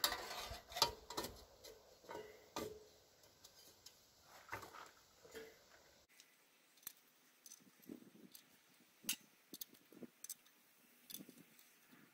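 Scattered light metallic clinks and knocks of a part and tools being handled and fitted at the front of a tractor engine, busier in the first few seconds and sparser later.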